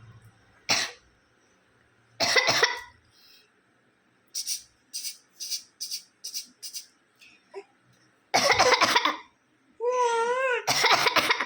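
A person coughing: a few separate coughs, a run of short quick coughs in the middle, then two longer hard coughs. Near the end a baby answers with a high, wavering squeal.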